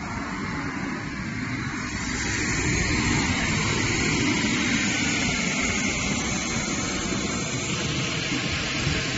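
Electric air blower running steadily, feeding air into an inflatable slide through its inflation tube; the rushing noise grows louder about two seconds in and then holds steady.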